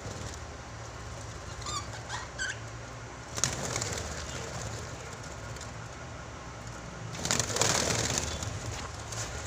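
Pet birds giving a few short chirps about two seconds in, then flapping their wings in a brief flurry and again in a longer flurry near the end, over a steady low hum.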